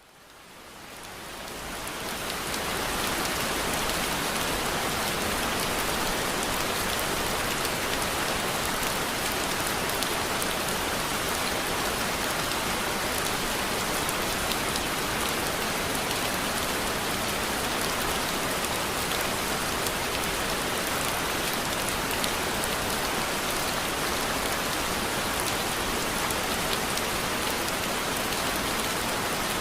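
Steady rain falling on a surface, an even hiss with many fine drop ticks, fading in over the first few seconds.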